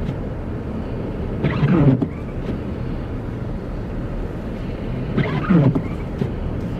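A vehicle running with a steady low rumble of engine and road noise. Twice, about a second and a half in and again near five seconds in, a short sound falls in pitch over half a second.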